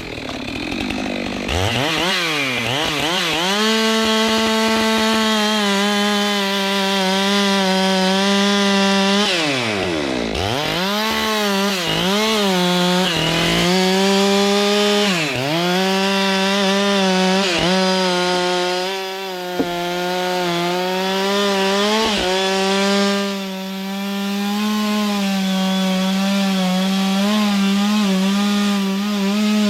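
Stihl two-stroke chainsaw coming up to full throttle in the first few seconds, then running at high revs while cutting through the wood of a large kapok tree. The engine note sags briefly several times as the chain bogs down in the cut and recovers, most deeply about ten seconds in.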